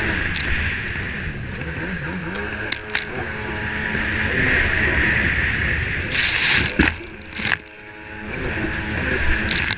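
Racing jet ski's engine running hard, its pitch rising and falling with the throttle, while the hull slaps through the water and throws spray in a few sharp splashes. Near the end the engine drops off briefly, then climbs again.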